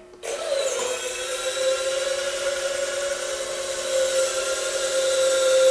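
Electric lift cylinders of a 3D-printed hook lift on a Tamiya King Hauler RC truck whirring as they tilt the bed up. It is a steady high whine that starts a moment in, dips slightly in pitch at first and grows louder near the end.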